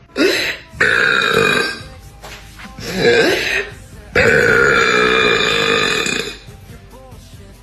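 A woman belching loudly several times in a row: a few shorter belches, then one long drawn-out belch lasting about two seconds.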